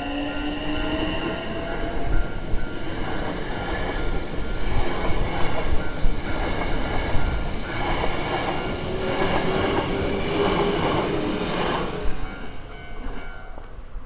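Hankyu 9000 series electric train passing a level crossing: its motors whine and rise in pitch, and the wheels clatter over the rail joints until the clatter stops about twelve seconds in, when the last car clears. The crossing's warning bell rings steadily throughout.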